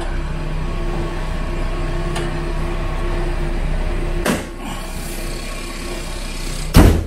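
Steady mechanical hum of a running motor, with a knock about four seconds in and a loud thump near the end, where the hum stops.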